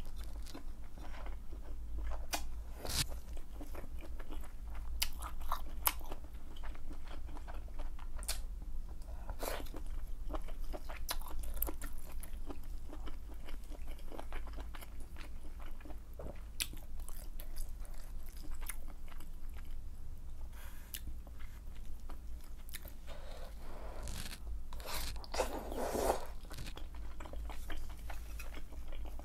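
Close-miked eating sounds of malatang: chewing with a steady run of short wet clicks and smacks as wide glass noodles and other pieces from the spicy broth are eaten, and a longer, louder stretch of mouth noise about 25 seconds in.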